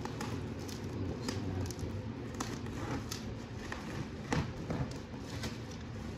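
Plastic parcel wrapping and bubble wrap crinkling and crackling as hands handle it and start cutting it with scissors: irregular sharp crackles, loudest about four seconds in.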